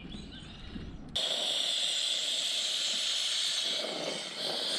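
A low outdoor rumble with a few short bird chirps, then about a second in a sudden cut to a loud, steady hiss.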